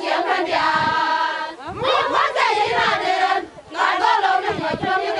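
A group of women singing together in a chant. Several voices hold a high note through the first second and a half, and the singing breaks off briefly about three and a half seconds in.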